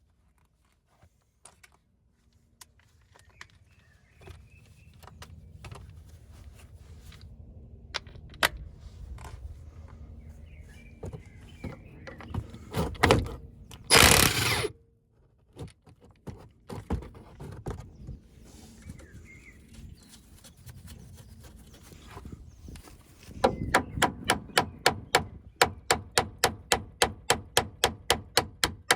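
Hand-tool work on a car: scattered clicks and knocks over a low steady hum, a loud hissing burst of about a second midway, and near the end a quick run of sharp metal strikes, about four a second.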